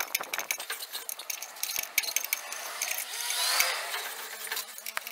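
Rear drum brake of a Nissan NP300 being adjusted: a screwdriver levers the star-wheel shoe adjuster through the backing-plate hole, giving a quick run of small metallic clicks as the shoes are brought closer to the drum. A brief scraping swell comes about three seconds in.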